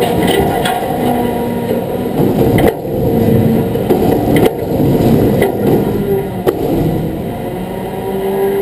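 Medium-duty truck engine idling steadily, with three short sharp knocks.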